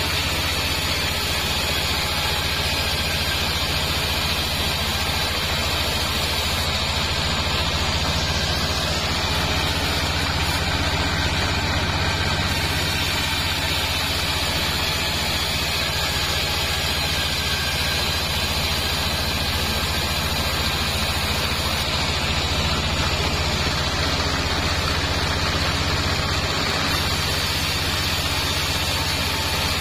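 Bandsaw mill running steadily, its blade sawing lengthwise through a sengon log, over a steady low hum from the mill's drive.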